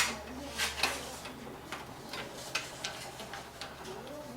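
Small metal clicks and taps from a screwdriver and screws on a computer case's expansion slot covers as the covers are taken out. One sharp click at the start is the loudest, followed by scattered lighter ticks.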